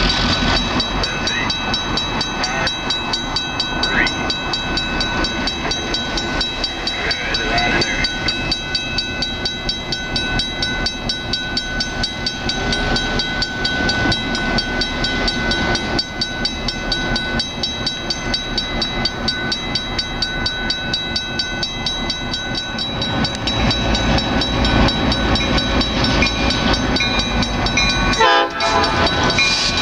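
Two GP16 diesel locomotives running steadily as they move a cut of boxcars in switching. Near the end the locomotive horn begins to sound.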